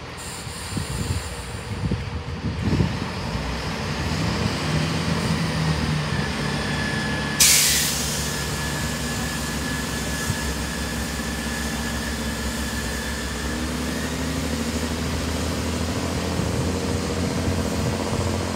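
Class 165 diesel multiple unit's engines running at the platform and then pulling away, the engine note rising near the end as it accelerates. About seven seconds in a short loud hiss of released air sounds, followed by a steady high tone lasting about six seconds.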